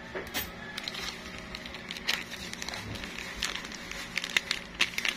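Scattered light clicks and taps of kitchen utensils and containers against a bowl, with a few sharper knocks, as ground pepper is added to a calamansi marinade.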